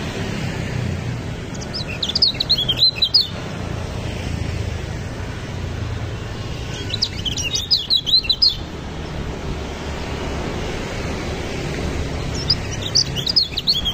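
White-eye singing in three short bursts of rapid, high twittering a few seconds apart, over a steady low rumble.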